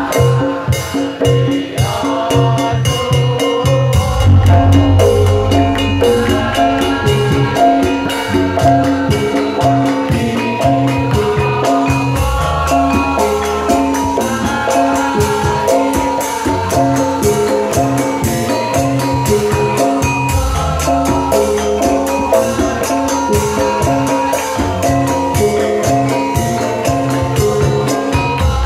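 Javanese traditional ensemble music played live, with no singing: a busy melody of struck metal bars over drums and a jingling rattle, keeping a steady driving beat.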